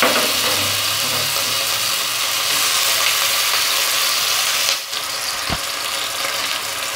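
Sliced onion sizzling in hot cooking oil in a stainless steel wok: a steady, loud hiss. It dips briefly just before five seconds in, and a single light knock follows shortly after.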